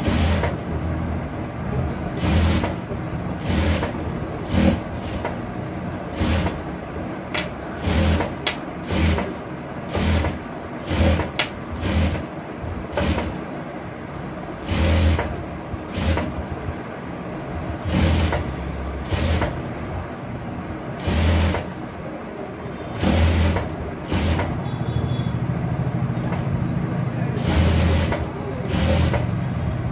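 Electric sewing machine stitching in short runs, the motor starting and stopping about once a second, with a steady low hum between runs.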